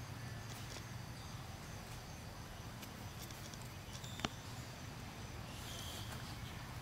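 Faint background ambience: a steady low hum with one sharp click a little after four seconds in, and a faint high chirp near the end.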